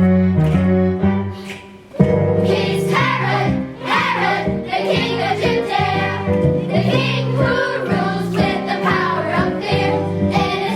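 Children singing together as a choir with keyboard accompaniment. The keyboard plays alone at first, and the voices come in about two seconds in.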